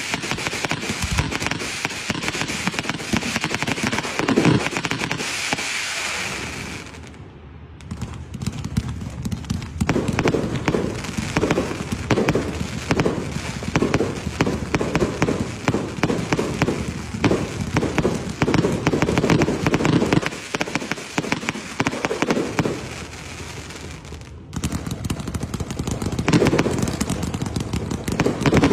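Fireworks display: a dense run of bangs, pops and crackles from aerial shells and ground fountains, with a steady hiss in the first several seconds. The firing eases off briefly about seven seconds in and again a few seconds before the end, then picks up.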